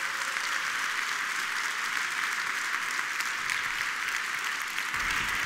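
Large theatre audience applauding steadily, a dense, even clapping that holds the same level throughout.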